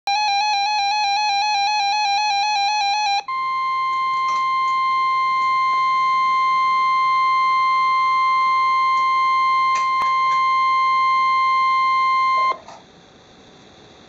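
NOAA Weather Radio sounding an alert: about three seconds of rapid warbling electronic tones, then the steady, high 1050 Hz warning alarm tone for about nine seconds, cutting off abruptly to faint radio hiss.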